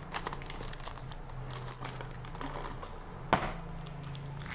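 Plastic seasoning sachets clicking and crinkling as a hand rummages through a kitchen drawer full of packets, with one sharp knock about three seconds in, over a low steady hum.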